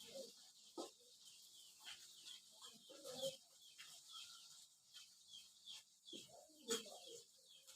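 Small mujair fish deep-frying in oil with a faint, steady sizzle. Chickens cluck now and then in the background.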